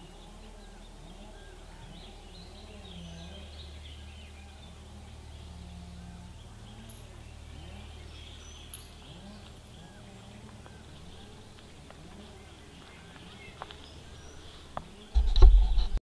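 Quiet lakeside outdoor ambience: a low steady rumble with faint, scattered bird chirps. Near the end come a couple of small clicks, then a sudden loud knocking and rustling on the microphone, as the camera is handled to stop the recording.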